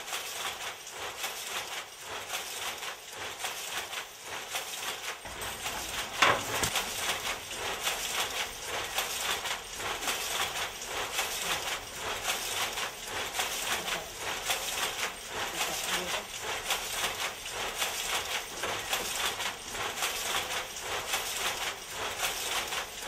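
Water dripping and splashing from wet skeins of yarn lifted on a stick over a hot vat: a dense, irregular patter, with one sharper knock about six seconds in.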